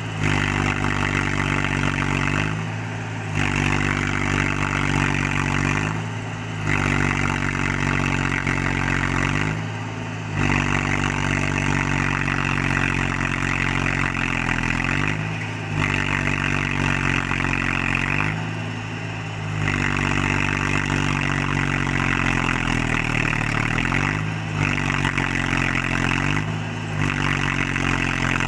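Mahindra 275 DI tractor's diesel engine running hard under heavy load, straining to climb a muddy cut with a loaded trolley. It eases off briefly every few seconds, and its pitch sags and recovers a few times as it labours.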